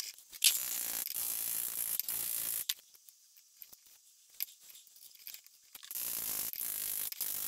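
A handheld vibrating tool buzzes against a square stainless steel tube packed with steel powder, shaking the powder down so it settles. It runs twice for about two seconds each: once starting about half a second in, and again near the end.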